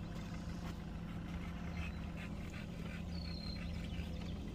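Outboard motor idling with a steady low hum. A short, high bird chirp sounds about three seconds in.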